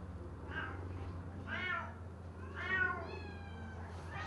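Domestic cat meowing several times: short meows, then a longer one near the end that falls in pitch.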